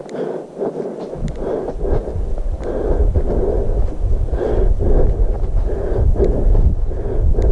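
Footsteps on a dirt trail at a steady walking pace, about two a second. From about a second in, wind rumbles on the microphone.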